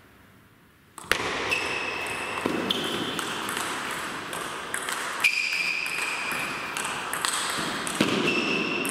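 Table tennis rally starting about a second in: the ball clicking off the bats and the table, each stroke with a short ringing ping.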